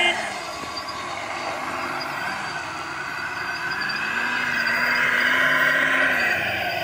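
Radio-controlled scale construction vehicles running, with a motor whose pitch rises, holds and falls about four seconds in.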